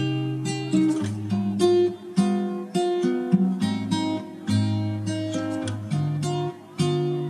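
Background music: an acoustic guitar plucking and strumming chords, a new note or chord every half second to a second.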